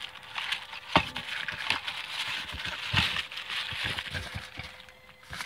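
Cardboard packaging rustling and scraping as a boxed model kit is pulled out of a corrugated shipping carton. Two sharp knocks come about a second and three seconds in.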